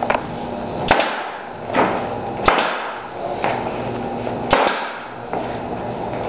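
Pneumatic nail gun firing nails into wooden track rails: about seven sharp shots, roughly one a second.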